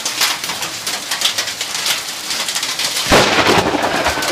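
Steady rain with hail falling, many sharp separate ticks of stones striking over the hiss. About three seconds in, a louder, deeper rush of noise comes in and lasts about a second.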